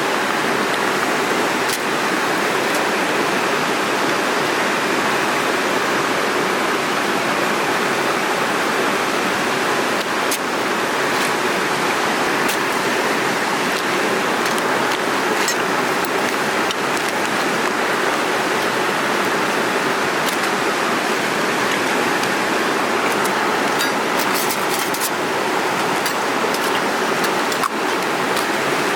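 Mountain river rushing steadily through a gorge. A few light clicks are heard near the end.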